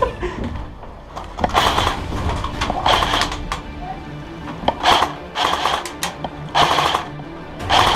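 Airsoft electric rifles firing short full-auto bursts, about six of them at uneven intervals, each a rapid mechanical rattle lasting under half a second. Background music plays underneath.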